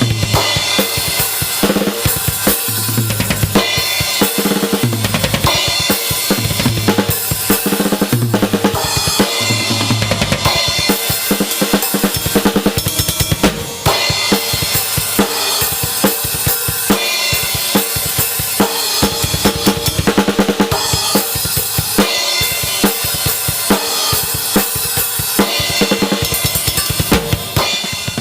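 Drum kit played in a steady groove with bass drum, snare and Armada Trojan B8 bronze cymbals ringing over the beat; the playing eases briefly about halfway through.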